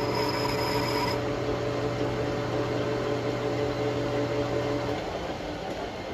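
Metal lathe running, with a boring bar boring out a steel shaft coupler: a steady machine hum with a whine. Part of the whine stops about a second in, and the hum drops off about five seconds in.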